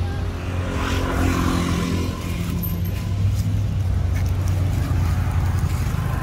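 A steady, low engine hum, like a motor vehicle running.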